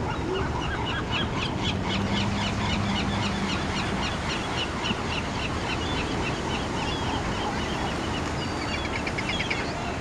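A feeding flock of seabirds on the water, gulls among them, calling in many quick, overlapping squawks over a steady wash of surf and wind.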